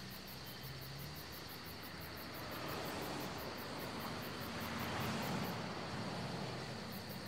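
Crickets chirping in an even pulse, about four chirps a second, over a faint steady hiss of night ambience. The chirping stops for a moment past the middle.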